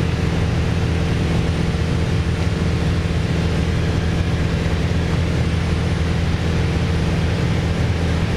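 Steady drone of a Piper PA28-161 Warrior's four-cylinder Lycoming O-320 engine and propeller in level cruise, heard inside the cabin.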